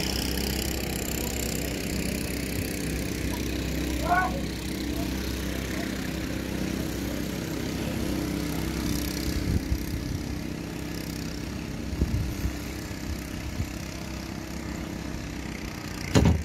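An engine running steadily at idle, with a brief pitched sound about four seconds in and a loud thump near the end.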